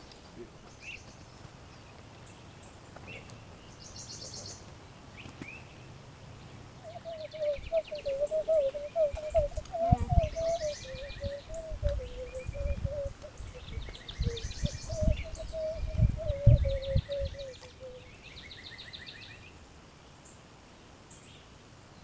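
Birds singing, with repeated short high trills and chirps. From about seven to eighteen seconds a wavering, steady-pitched hum and a run of low rumbling thumps come in and are louder than the birds.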